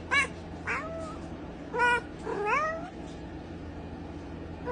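A cat meowing, about four short meows in the first three seconds, some rising in pitch, then a pause.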